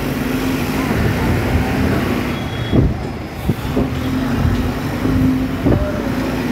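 Road traffic noise: motorbike and car engines running, with a steady low engine drone and a few sharp knocks.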